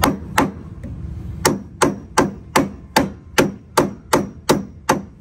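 Hammer tapping a part of a drift car back into place: a steady run of sharp blows, about three a second, with a short pause after the first two.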